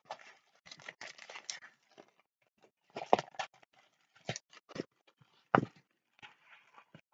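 Rustling of a rolled diamond-painting canvas and its white paper sheet being unrolled and handled, with several short sharp knocks as the canvas is moved about.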